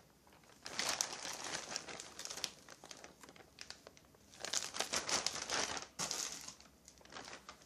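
Plastic parts bag crinkling as it is handled, in irregular spells of rustling with short pauses between them.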